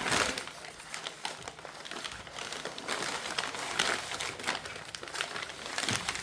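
Packaging being handled and crinkled while a boxed model airplane is unpacked: irregular rustling and crinkling, loudest just at the start and again about four and six seconds in.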